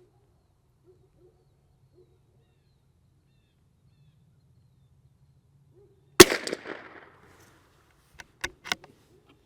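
A single shot from a CZ 457 Varmint MTR bolt-action .22LR rifle about six seconds in, sharp and loud, with an echo that fades over about a second. Some two seconds later come three quick metallic clicks of the bolt being worked.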